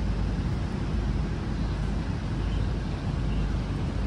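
Steady rushing noise with a heavy, constantly fluctuating low rumble and no distinct events.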